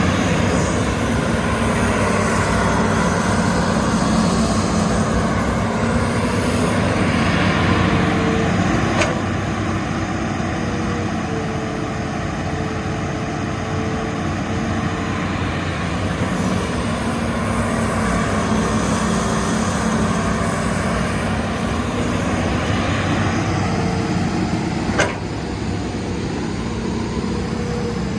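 Hitachi Zaxis hydraulic excavator running at high throttle with a steady buzzing engine note, a hissing rush that swells and fades twice as the machine works, and a sharp knock about nine seconds in with a louder one near the end.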